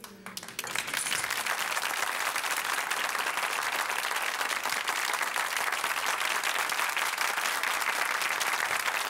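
Studio audience applauding, building up about half a second in and then holding steady.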